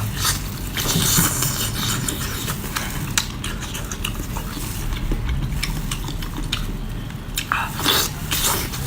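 Close-miked eating and food-handling sounds: a dense run of small wet clicks and crackles over a low steady hum.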